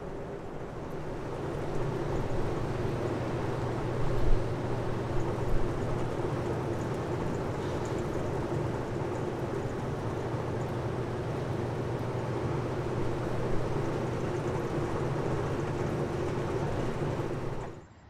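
Steady low mechanical drone with a constant hum, with a couple of brief thumps about four and five and a half seconds in.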